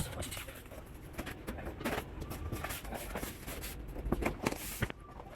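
Irregular clicks and knocks of handling, several sharper ones near the end, over a steady low rumble.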